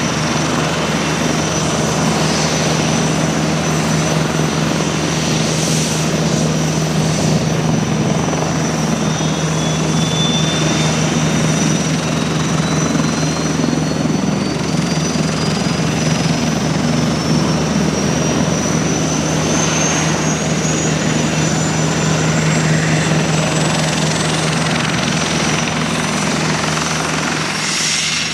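Military helicopter running close by: steady, loud turbine and rotor noise with a constant high whine, and a second whine that climbs slowly in pitch from about a third of the way in until near the end.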